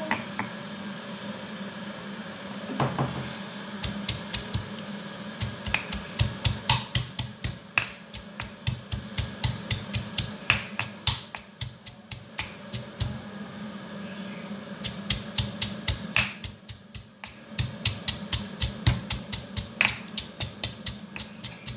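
Pestle pounding chilies and garlic in a mortar: rapid, even knocks a few times a second, with a brief pause about two-thirds of the way through.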